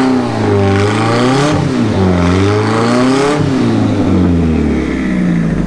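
Opel GT's swapped Mazda BP 1.8-litre four-cylinder engine revving hard while the rear tyres spin in a smoky burnout. The revs rise and fall twice, then drop away steadily near the end.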